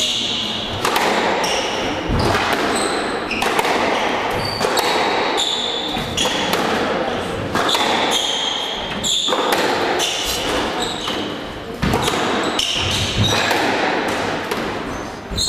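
Squash rally: a run of sharp ball strikes off rackets and court walls, echoing in a large hall, with short high squeaks of court shoes on the wooden floor in between.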